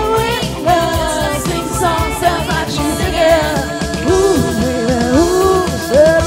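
A rock cover band playing live: drums and bass under a melodic lead line that bends and slides in pitch.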